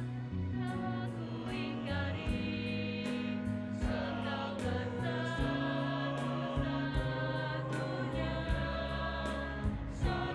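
Mixed choir singing sustained harmonies in a pop-ballad arrangement, over a bass line and a steady drum beat.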